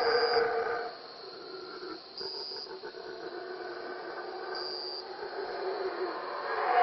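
Howler monkeys roaring in chorus, a deep rumbling howl that drops back after about a second and swells loud again near the end. A short high-pitched note repeats about every two seconds over it.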